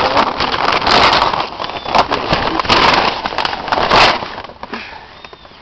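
Plastic sheeting crinkling and rustling loudly as it is handled and pushed aside close to the microphone, stopping about four seconds in.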